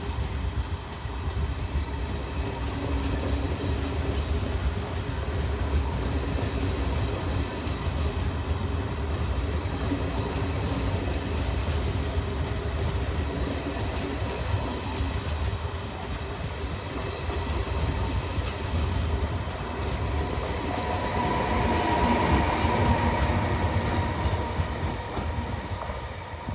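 Passenger train coaches rolling past on the rails: a steady low rumble with wheel clicks. About 21 seconds in it swells louder, with a whining tone, as the electric locomotive at the rear of the train goes by, then fades as it draws away.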